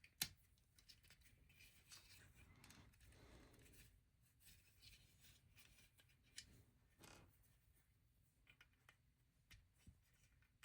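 Faint clicks and soft rustles of small plastic LEGO bricks being handled and pressed together, with one sharper click just after the start and a few smaller ones later.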